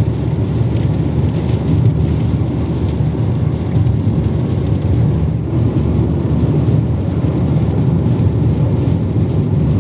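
Rain falling, with a steady low rumble underneath.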